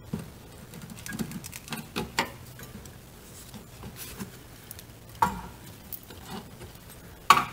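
Flat metal pry tool working at the spring-steel clip on a VW Golf mk4's rear parking-brake cable: scattered light scrapes and taps, with a few sharper metallic clicks, the loudest just before the end.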